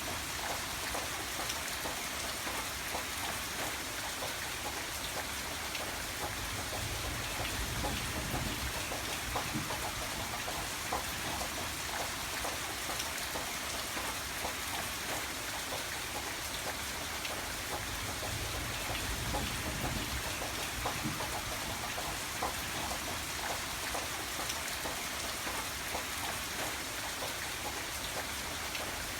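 Steady rain falling, a continuous hiss with many small drops ticking on a surface. A soft low rumble swells twice, about a third and two-thirds of the way through.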